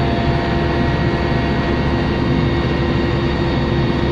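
Helicopter in flight, heard from inside the cabin: a steady drone of engine and rotor noise with a constant hum, unchanging throughout.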